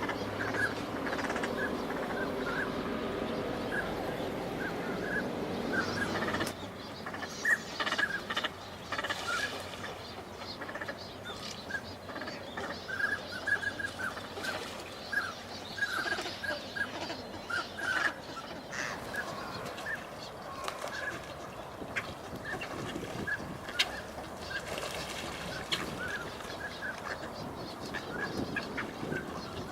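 A flock of wintering waterbirds at the shore calling over and over in short, repeated notes. A low drone runs underneath and stops suddenly about six seconds in.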